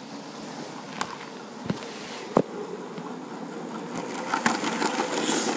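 Battery-powered Lego train motor whirring steadily as the high-speed passenger train runs along plastic track, with a few sharp clicks in the first half. It grows louder about four seconds in as the train passes close by.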